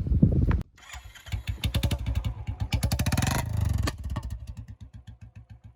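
Royal Enfield Classic 350 single-cylinder engine breathing through an aftermarket bend pipe, revved up and then let fall back toward idle. The owner says that it pops on the throttle release, which he counts as a drawback of this pipe.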